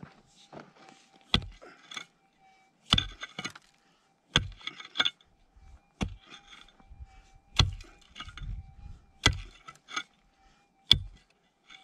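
Prospecting pick striking hard, stony ground seven times, about once every second and a half, each blow followed by a rattle of loosened stones and gravel, as a metal detector target is dug out.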